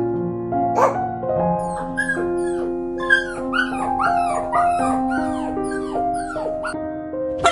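A dog whimpering and yelping in a quick run of high, falling cries, about three a second, over background piano music.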